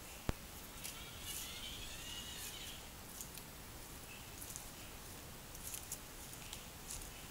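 A sharp click, then a faint high whirr for about a second and a half as the homemade solar tracker's drive swings the parabolic mirror round onto the sun. Scattered faint ticks follow.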